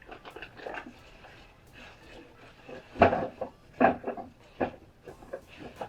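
Fermzilla fermenter kit parts being handled and set down: irregular clacks and knocks with rustling, the loudest knocks about three seconds in, again near four seconds and just before five.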